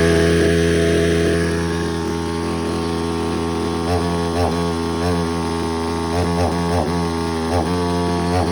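Two-stroke chainsaw engine running steadily, a little louder for the first second or so and then settling to a steady idle. From about four seconds in, music with short sliding notes plays over it.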